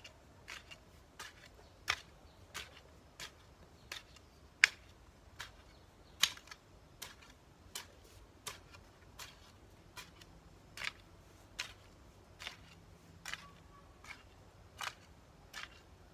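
A hand hoe's blade chopping into garden soil, one sharp strike about every 0.7 seconds.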